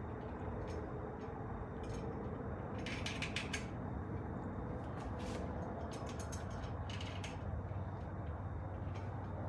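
Bursts of quick, light metallic clicks and rattles from bicycle parts being handled while the front wheel's safety washers and axle nuts are fitted on a BMX cruiser, over a steady low background hum.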